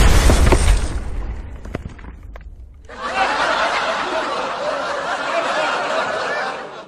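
An explosion sound effect, loud at the start and dying away over about two seconds. About three seconds in, a group laughs for about four seconds, then the laughter cuts off suddenly.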